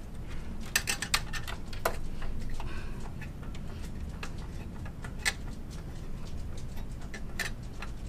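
Scattered clicks and light knocks of hands handling plastic and metal parts inside an HP Z800 workstation case, over a steady low hum from an air conditioner.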